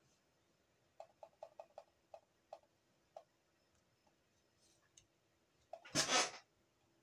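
About eight light clicks at a computer, starting about a second in, quick at first and then further apart. Near the end comes a short, louder burst of noise, the loudest sound here.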